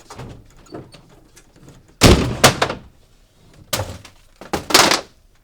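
A heavy bang about two seconds in, quickly followed by a second knock, then another cluster of knocks and thuds nearer the end, with a short echo after each.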